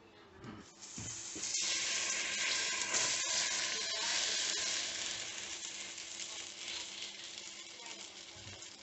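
Hot, wet drained spaghetti tipped back into the empty pot on the stove, sizzling and hissing as it hits the hot pot. The hiss starts about a second in and slowly dies down over the last few seconds.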